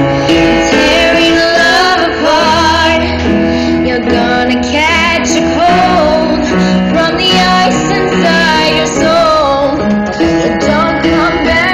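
Music with a singing voice over steady instrumental backing.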